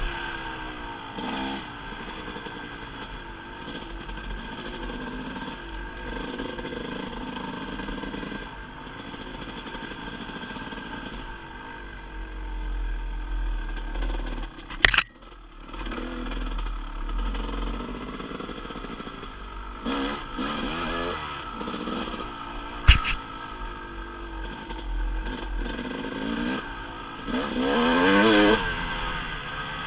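Dirt bike engine revving and easing off as it is ridden along a rough trail, the revs climbing near the end. A sharp knock comes about halfway through and another about three-quarters through.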